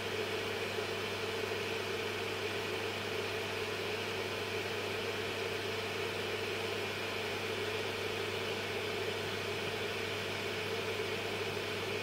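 Small bench fan of a soldering fume extractor running steadily, a constant whir with a low hum under it.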